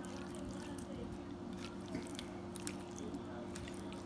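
A silicone spatula tossing oiled, seasoned potato chunks in a ceramic baking dish: soft wet squishes and light clicks of the spatula against the dish, over a steady low hum.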